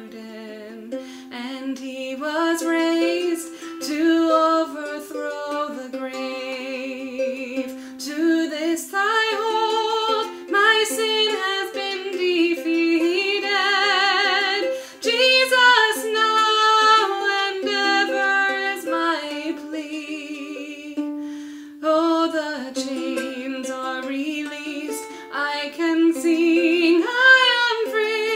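A woman singing a slow song to her own ukulele accompaniment, the strings plucked and strummed under the voice.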